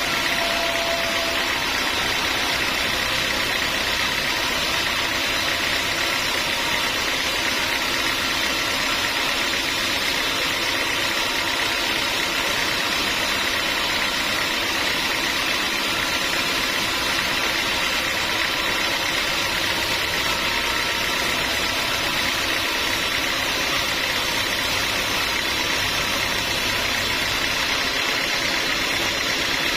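Sawmill machinery running steadily, a constant mechanical drone with a hiss that does not change.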